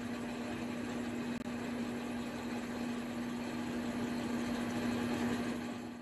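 Small Enco metal lathe running at steady speed with a steady hum, while a countersink bit in the tailstock chuck bores a pilot hole into the end of a 3/8 bolt.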